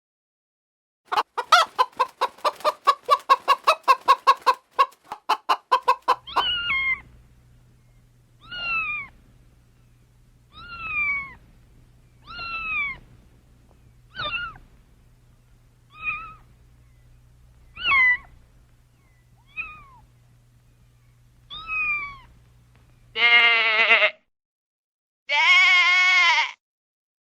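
A hen clucking in a fast run of short clucks, then a cat meowing about ten times, roughly every two seconds, each meow falling in pitch. Near the end come two long goat bleats.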